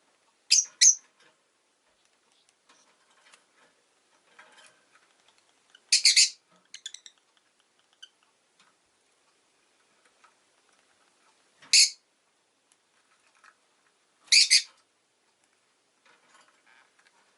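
Rosy-faced lovebirds giving short, loud, high-pitched shrill calls, four separate bursts spaced several seconds apart, the first and second doubled, with faint rustling and small sounds between.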